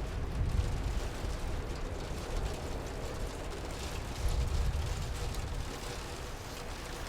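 Steady rain ambience, with a low rumble that swells twice.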